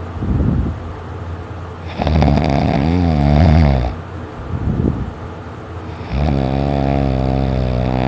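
A sleeper snoring heavily: two long, buzzing snores, one starting about 2 seconds in and another about 6 seconds in that is still going at the end, with shorter breathy snores between them.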